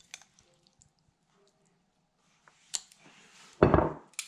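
Faint clicks of plastic-tipped tongs against a bowl as coleslaw is spooned onto a sandwich, then a short rustling bump with a heavy low thud about three and a half seconds in, typical of the camera being handled and moved.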